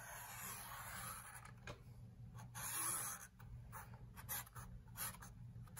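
Felt-tip marker drawing on a paper plate: the faint rub of the tip across the paper, one longer stroke at first, then a string of short strokes.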